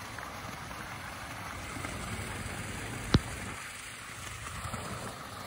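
Steady splashing rush of water from wall spouts pouring into a swimming pool, with one sharp click about three seconds in.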